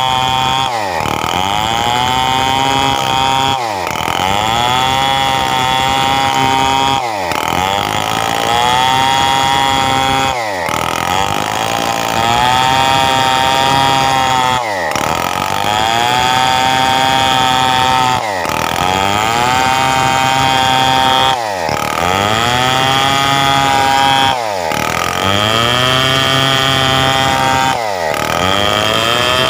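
Stihl 070 two-stroke chainsaw running at high revs while milling a coconut trunk into beams. Its revs drop sharply and climb back up about every three and a half seconds, over and over.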